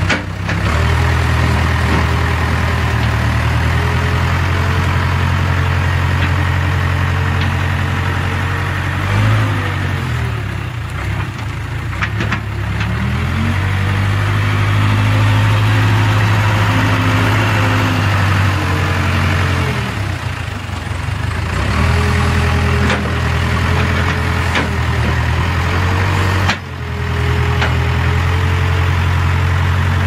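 Case 580K backhoe's Cummins-built diesel engine running steadily while the loader bucket pushes into a brush pile, its pitch dipping and rising again several times as the load and throttle change.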